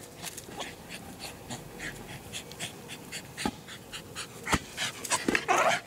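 American Eskimo dog panting quickly in short, even breaths, with a couple of dull thumps and a louder burst of sound near the end.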